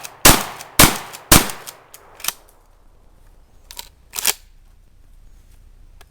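Stevens Model 320 12-gauge pump-action shotgun firing three loud shots in quick succession, about half a second apart, in the first second and a half. Fainter clacks follow around the middle.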